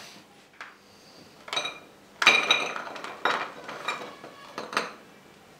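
Pieces of homemade layered chocolate tipped out of a plastic container onto a plate, clattering in a run of short clinks, loudest a little over two seconds in.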